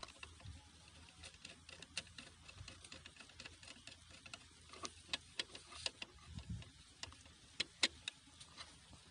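Faint, irregular clicks and light scrapes of a screwdriver working a brass terminal screw on a motor starter's contactor, a few louder clicks around the middle and near the end.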